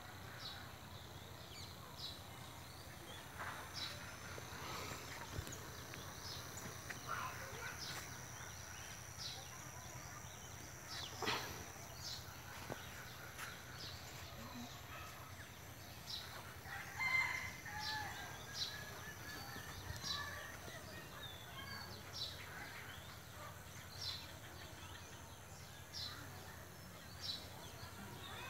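A rooster crows once a little past the middle, the loudest sound, over quiet outdoor background. Short high chirps come about once a second, over a faint steady hum.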